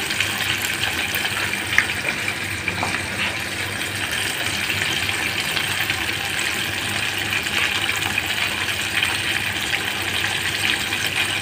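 Coated chicken pieces deep-frying in hot oil in a stainless steel pot: a steady sizzle full of fine crackles, with one sharper pop about two seconds in. The chicken is frying until golden brown.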